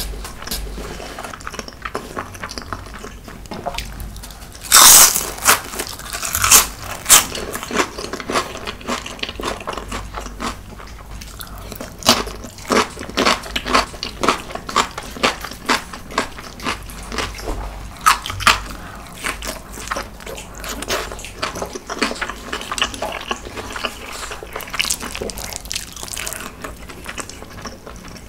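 Close-miked eating: crisp crunches of food being bitten and chewed, the loudest cluster about five seconds in, then steady crunching that thins out in the last third.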